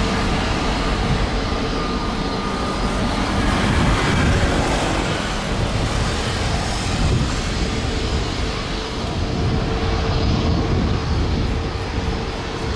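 Jet airliner engine noise: a steady, dense roar with a heavy low rumble and a faint held whine.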